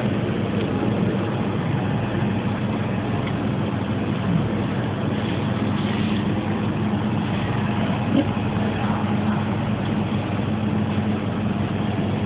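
Steady low machine hum under an even noisy hiss: the running drone of dining-hall kitchen and drink-dispensing equipment.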